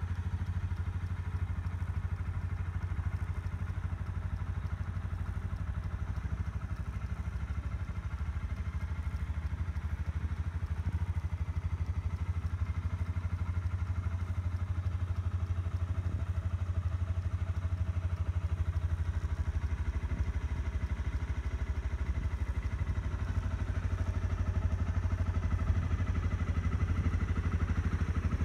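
Honda CRF250L's single-cylinder four-stroke engine idling steadily, a little louder in the second half.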